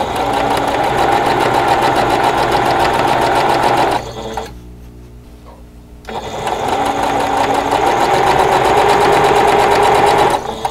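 Singer electric sewing machine stitching at speed in two runs of about four seconds each, with a short stop of about two seconds between them. It is sewing seams in small fabric squares fed through one pair after another.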